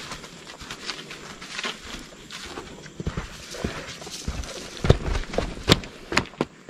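Footsteps crunching and clacking on the rocky floor of a dry canyon, irregular steps that grow louder and sharper about halfway through.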